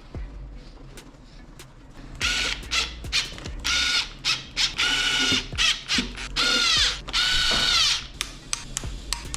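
Cordless power tool motor, such as an electric ratchet or drill, run in about seven short bursts while fasteners are driven on the engine. The pitch drops as each burst is released, with light clicks of hand-tool work before and after.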